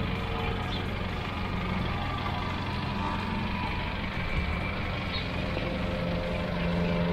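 A vehicle engine running at low speed, steady and slightly louder near the end, as a boat trailer is backed down a boat ramp.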